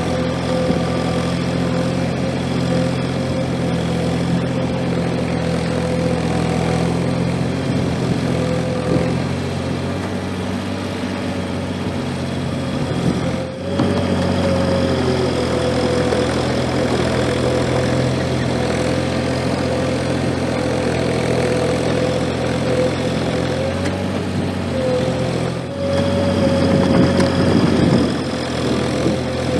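Gehl 4835 SXT skid steer's engine running steadily, with a steady higher whine over it; it gets louder near the end.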